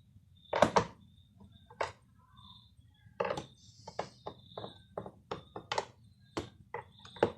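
About a dozen irregular sharp clicks and knocks of hard objects being handled, the loudest one about half a second in.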